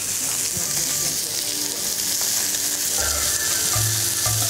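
Chicken pieces sizzling in olive oil in a hot frying pan, a steady hiss. A low hum comes in about three seconds in.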